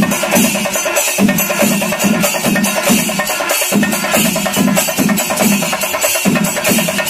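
Kerala temple-festival percussion: drums struck with sticks in a loud, fast, unbroken rhythm, with heavy beats about twice a second under a quick run of sharp strokes.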